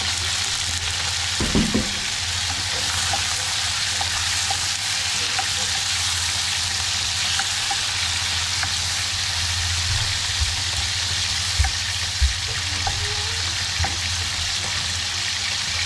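Small whole fish frying in a pan of hot oil, a steady sizzle, while tomatoes and onions are stirred in a second pan with a plastic ladle. A couple of short knocks come about two thirds of the way through.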